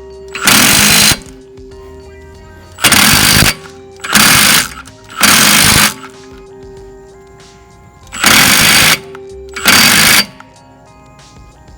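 Impact wrench hammering in six short bursts, driving a lug nut down onto a wheel stud installer to pull a new wheel stud into the hub until it seats.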